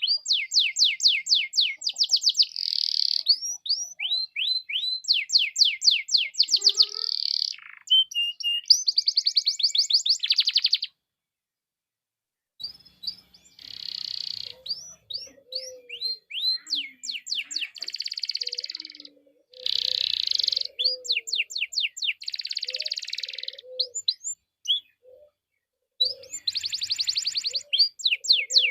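Domestic canary in full song: fast trills of quickly repeated high sweeping notes alternating with dense buzzy rolls, broken once by a short stretch of complete silence about eleven seconds in.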